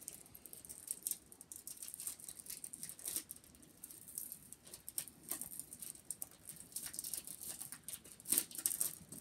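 Plastic packaging of a pack of index dividers crinkling and rustling in irregular small crackles as it is handled.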